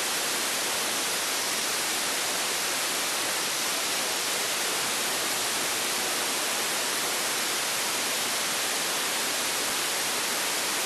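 Steady hiss of FM static from a software-defined radio receiving the 10-metre band with no usable signal in its passband. It is the unsquelched noise of the FM demodulator between stations.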